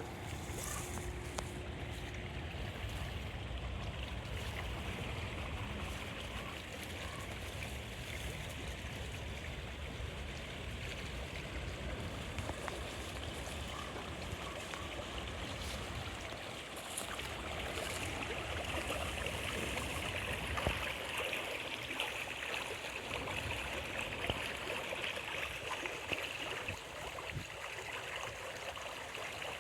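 A stream of water running steadily.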